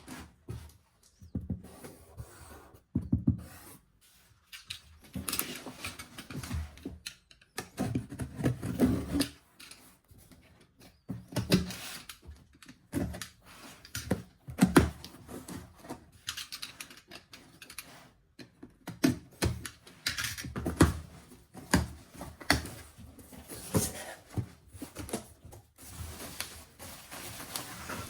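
Hands handling small objects: irregular clicks, taps and rustles, with no steady motor hum.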